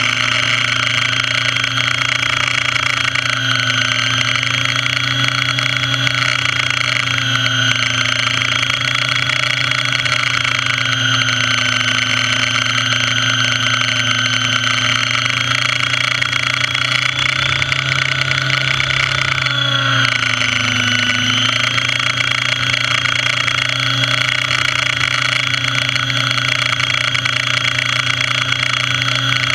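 Radio-controlled model helicopter in flight, heard from a camera mounted on the helicopter itself: a loud, steady motor-and-rotor whine. The pitch dips briefly about twenty seconds in and then recovers.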